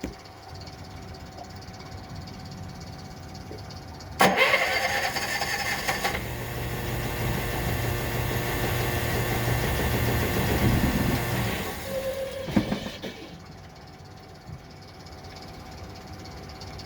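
Kohler 5ECD generator engine being cranked on its starter in a start attempt. It kicks in suddenly about four seconds in, changes about two seconds later, runs for roughly six seconds more and stops. The no-start trouble is taken for a fuel-injection fault that acts like a dirty carburettor.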